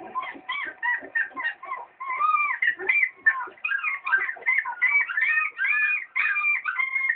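Lhasa Apso dog whining and yipping in a quick string of short, high-pitched calls, two or three a second.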